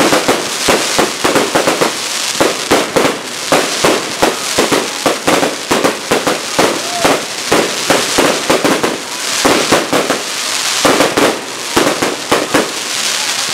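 Fireworks display: a dense, rapid barrage of aerial bursts, with bangs and crackles coming many times a second and no let-up.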